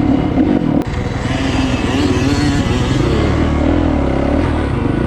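Dirt bike engine revving as it is ridden, its pitch rising and falling repeatedly.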